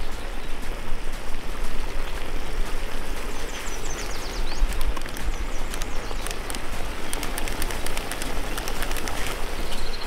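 Chunks of meat sizzling and crackling as they fry in a cast-iron cauldron, a steady hiss with fine pops throughout.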